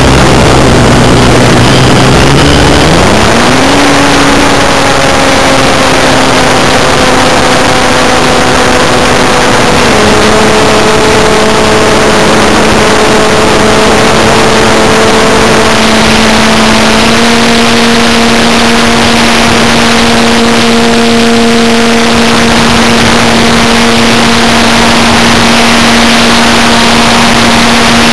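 Electric model airplane's motor and propeller heard from an onboard camera: a steady pitched whine under loud rushing wind on the microphone. The pitch climbs about three seconds in as the motor speeds up, drops a step later on, then rises a little and holds.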